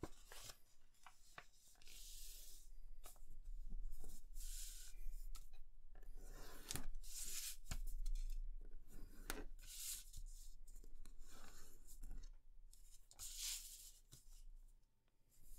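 A sheet of paper being folded and creased by hand on a cutting mat: repeated rustling swishes as it is handled and slid, with sharp crisp snaps as the folds are pressed flat.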